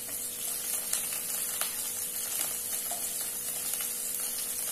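Hot oil sizzling in a wok as sliced onions are dropped in over whole spices, with scattered small crackles, over a steady low hum.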